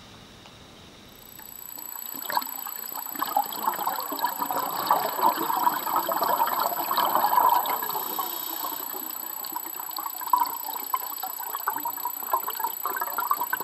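Water trickling and bubbling, building up over the first two seconds, with a faint steady high whine, and cutting off suddenly at the end.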